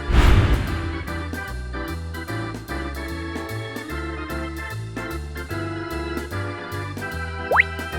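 Background music on electronic keyboard or organ, with a bass line stepping note by note. A loud crash-like burst of noise sounds right at the start, and a quick rising whistle comes near the end.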